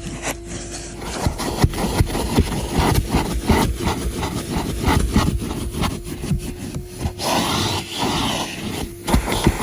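Numatic Henry NV250 vacuum cleaner running with a steady motor hum, its nozzle scraping and knocking repeatedly against the car's interior as it is worked back and forth. The rush of suction grows louder for a couple of seconds near the end.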